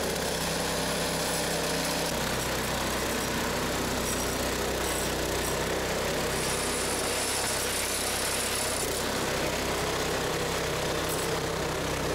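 Gasoline two-stage snowblower engine running steadily at working speed while the auger and impeller throw snow out of the chute.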